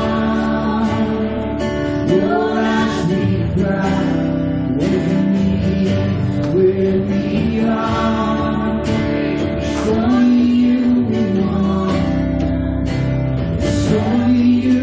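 Live worship band playing a slow gospel song with singing, guitar and drums with cymbal hits.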